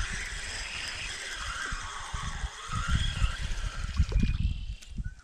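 A small hooked fish splashing at the surface as it is reeled in to the bank on a spinning reel, over a steady whir. Wind buffets the microphone in gusts.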